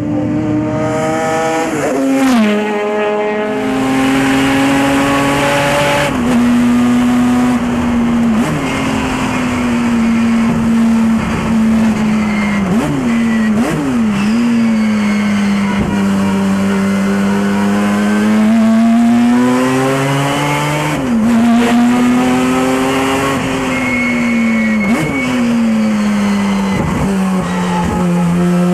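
Two-rotor 13B peripheral-port rotary engine of a Mazda RX-4 race car running hard at high revs, its pitch climbing and falling with the throttle and dropping sharply several times at gear changes and corners.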